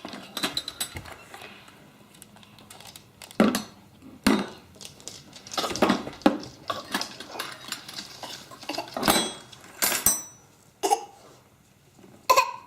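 Dishes and metal cutlery clinking and clattering as they are lifted out of a dishwasher and set down on a hard floor: irregular knocks and clinks, one about ten seconds in leaving a brief high ring.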